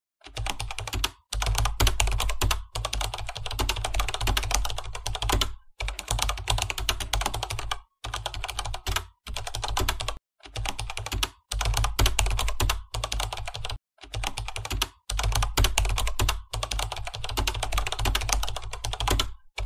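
Rapid computer keyboard typing in runs of one to three seconds, broken by short pauses, about eleven runs in all, keeping time with on-screen text being typed out letter by letter.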